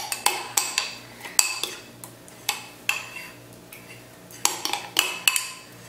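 A utensil clinking and knocking against a mixing bowl as a thick glue, shaving-gel and lotion slime mixture is stirred. The clicks come in irregular clusters, with a pause of about a second a little past the middle.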